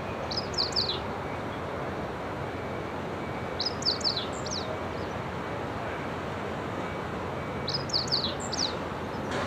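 Meadow bunting singing: three short phrases of a few high, quickly falling notes, about four seconds apart, over a steady background noise.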